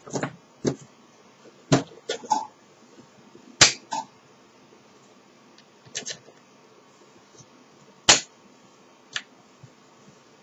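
Scattered sharp clicks and knocks, about ten of them at irregular intervals, of small hardware and parts being handled and set down during kit assembly.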